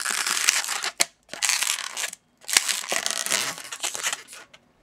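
Latex modelling balloon rubbing and twisting under the fingers while a pinch (ear) twist is pulled up and locked. It comes in three spells of rasping with short breaks about one and two seconds in, and dies away near the end.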